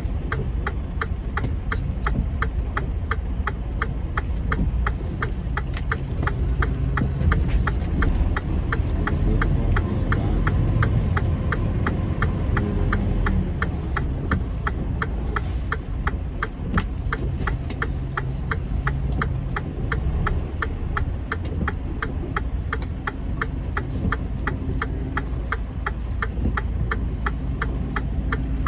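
A truck engine idling with a low rumble, heard from inside the cab, under a steady, even ticking about three times a second.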